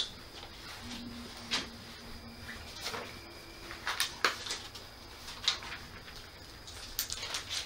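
A few soft taps and rustles of something being handled, spaced out over several seconds against quiet room tone.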